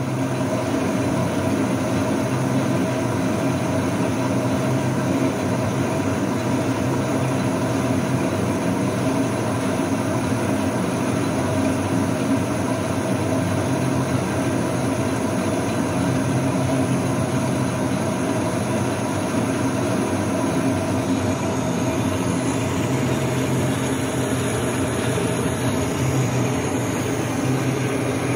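Metal lathe running steadily with a piston spinning in its chuck: an even mechanical hum with several steady tones from the motor and gearing.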